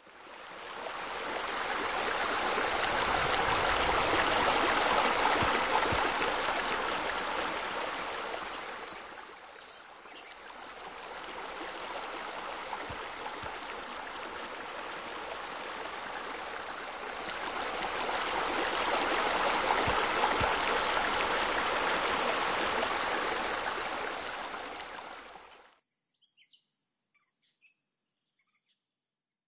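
Running water, a steady rush that fades in, dips about ten seconds in, swells again and then cuts off abruptly near the end.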